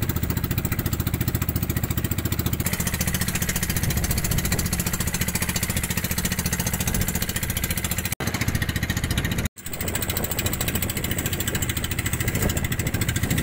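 Outrigger fishing boat's engine running steadily under way, a fast even chugging. The sound drops out briefly twice, about two-thirds of the way through.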